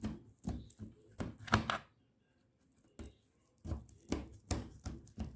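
Knife cutting through setting peanut brittle (caramelized peanuts in hard sugar syrup), making crunching, cracking strokes. A run of cuts in the first two seconds, a pause of about a second and a half, then a second run.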